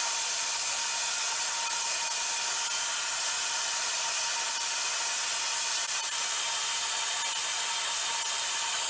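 Vacuum cleaner running steadily: an even rushing hiss of air with a faint steady whine.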